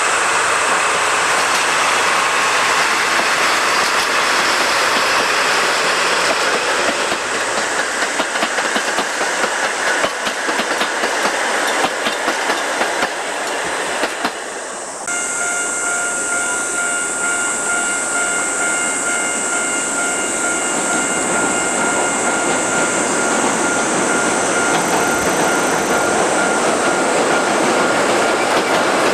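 A diesel-hauled train of old passenger coaches running on the rails: a steady rumble with the clatter of wheels over rail joints. After a cut about halfway, a steady high-pitched tone sits over the train noise for several seconds.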